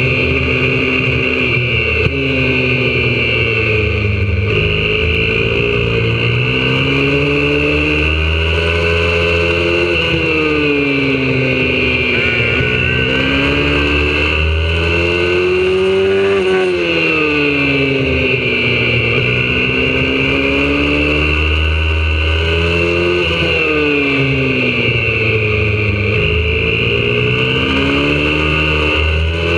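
YCF 125cc four-stroke single-cylinder pit bike engine at full race pace, revs climbing and dropping again and again as it accelerates, shifts and slows for corners.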